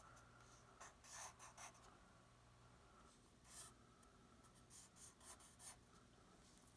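Faint pencil strokes on paper: a series of short scratchy strokes sketching fur.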